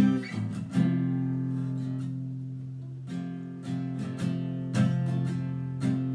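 Acoustic guitar strumming a song's introduction: a few separate chord strokes, each left to ring out before the next.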